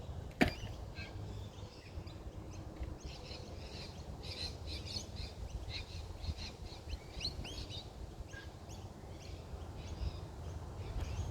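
A single sharp knock just after the start, then a scatter of short, high bird chirps and calls with quick rising and falling glides over a low background rumble.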